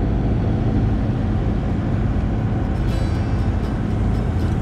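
A sailing catamaran's diesel engine running steadily under way, a loud even drone. The engine is running again after being repaired; it had refused to start.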